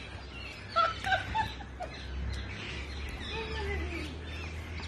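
Birds calling: a quick cluster of short chirping notes about a second in, then a longer falling call, over a low steady rumble.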